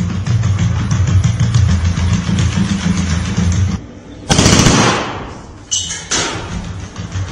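A vehicle engine runs steadily for the first few seconds, then drops out just before four seconds in. A loud burst follows about four seconds in, then two sharper bangs about a second and a half later: rifle fire from the assault rifle mounted on the robot dog.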